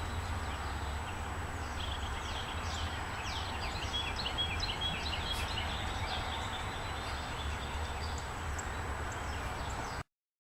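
Small songbirds chirping, with a busy run of quick high chirps and short falling notes in the middle, over a steady low outdoor rumble.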